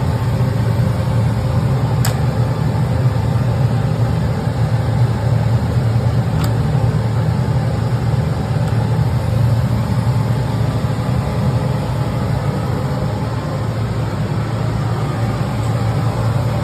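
Laser cutting and engraving machine running with a steady low hum. Two faint clicks, about two seconds and six and a half seconds in.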